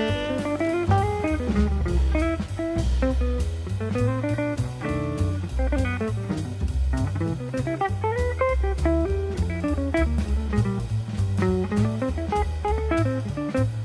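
Instrumental background music: a jazzy, bluesy tune with a guitar melody over bass and drums, with a steady beat.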